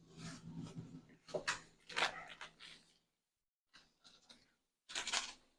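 Irregular rustling and tearing handling noises for about three seconds, then a pause and another short burst near the end, over a faint steady low hum.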